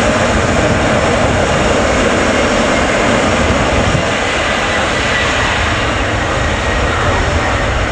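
Boeing 777-300ER's GE90-115B turbofan engines running, a steady loud jet rush with a faint whine.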